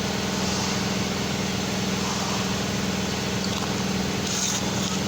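Ford F-250 pickup's engine idling steadily, an even hum with a low, constant pitch.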